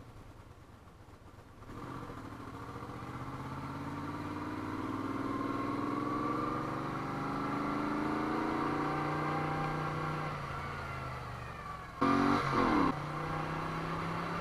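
Moto Guzzi V35's air-cooled V-twin engine pulling the bike along, its note rising steadily in pitch as it accelerates after a quiet first couple of seconds. Near the end comes a brief, louder burst with the pitch dropping sharply, then a steady lower note.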